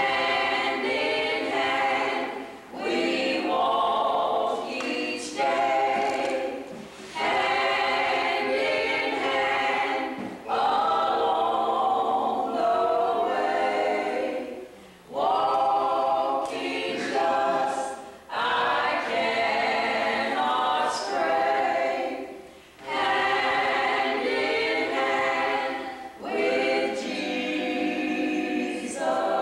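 A small group of men's and women's voices singing together unaccompanied, in phrases of a few seconds each with short breaks for breath between them.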